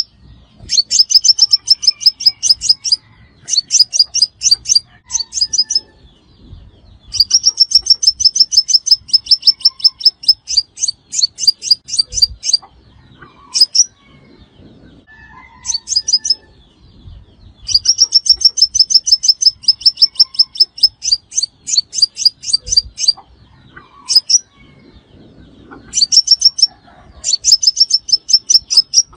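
Sunbird song used as a trapping lure: rapid trains of high, sharp chirps, about six a second, in bursts of one to three seconds with short pauses between.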